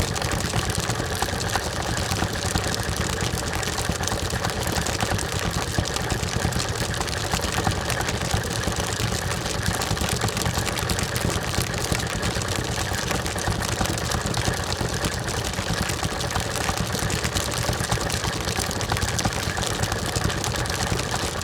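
National Geographic rock tumbler running at full speed, its barrel filled to the top with rocks, grit and water: a steady, dense rattle of stones and grit churning over a low motor hum.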